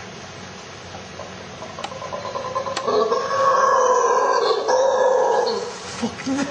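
Howler monkey howling: a deep, loud call that builds over about a second, holds for nearly three seconds, then falls away.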